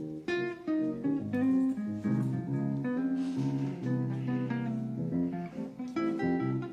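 Acoustic guitar music, quick plucked notes and some strummed chords, playing through a restored classic car radio's speaker.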